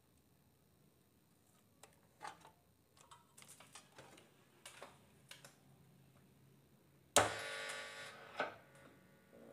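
Light clicks and knocks of circuit boards and cable connectors being handled inside an opened mixer amplifier. About seven seconds in, a sudden loud clank rings on for about a second and fades, followed by a smaller knock.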